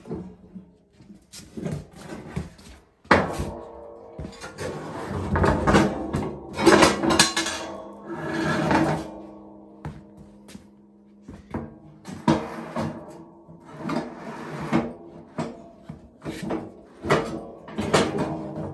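Irregular metal clanks and knocks of a 54-inch snowplow being hooked up to a Case Ingersoll garden tractor's front implement hitch by hand, loudest in a cluster in the middle, over background music.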